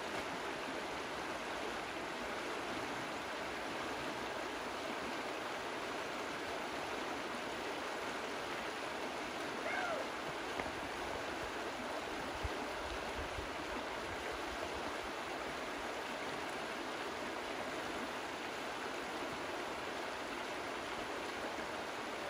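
Shallow river running over rocky riffles: a steady rush of water. One short, faint higher-pitched sound comes about halfway through.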